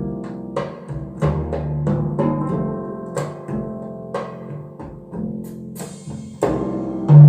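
Instrumental music played back through Wharfedale Diamond 220 bookshelf speakers: sustained chords with drum hits landing about every half second to second, the loudest hit near the end.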